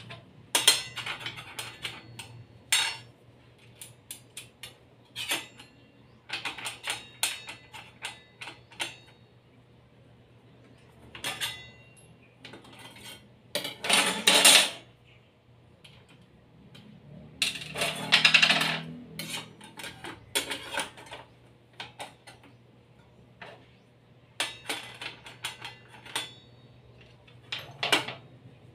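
Metal clinks, taps and rattles of a circular saw blade being changed by hand: the arbor bolt, washers, blade and hex key are knocked and set down. There are many short sharp clicks and two longer rattling scrapes, about 14 and 18 seconds in.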